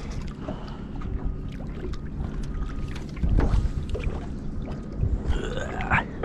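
A low, steady engine hum, with a few dull knocks and a short rising whine near the end.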